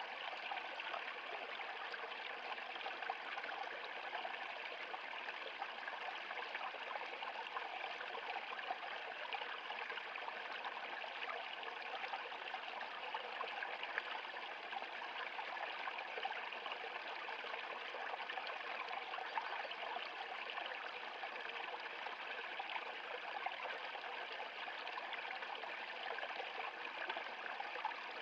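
Small shallow stream running over rocks and ice ledges, a steady trickling water sound with no rumble.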